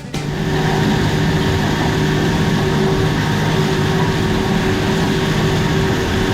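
John Deere four-wheel-drive tractor running steadily under load, heard from inside the cab while it pulls a tillage tool through the field, with a steady low drone and hum.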